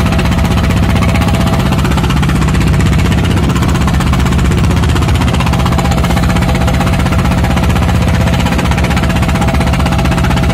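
Fishing boat's engine running steadily with a fast, even pulsing beat.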